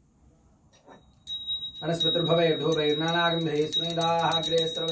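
Brass puja hand bell rung continuously from about a second in, a high, steady ringing, with a man's voice chanting in long held notes over it from a little later.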